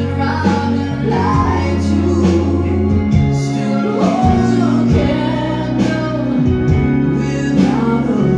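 Gospel song with singing voices over sustained bass and keyboard chords and a steady beat of about one stroke a second.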